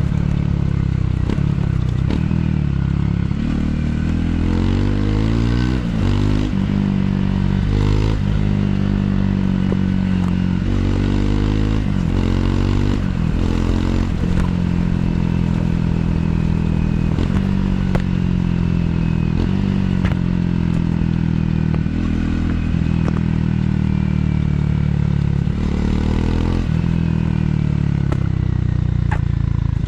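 Triumph Scrambler 400 X's single-cylinder engine through its stock exhaust while riding, the revs rising and falling again and again as the throttle is opened and closed, with wind noise over it.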